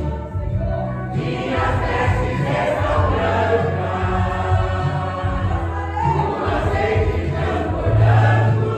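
Choir singing a gospel song over instrumental accompaniment, with steady low held notes beneath the voices.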